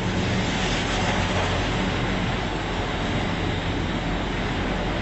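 Glass passenger lift travelling upward: the car and its machinery give a steady running rumble with a low hum.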